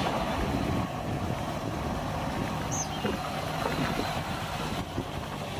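Diesel engine of a flatbed tractor-trailer truck running steadily as it drives past close by.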